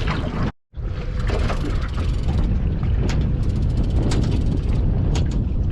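Wind buffeting the microphone as a steady low rumbling noise, with a few light clicks. The sound drops out for a moment about half a second in.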